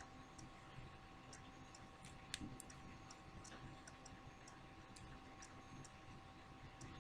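Near silence with faint, irregular ticking clicks throughout and a faint steady tone underneath; one sharper click comes about two and a half seconds in.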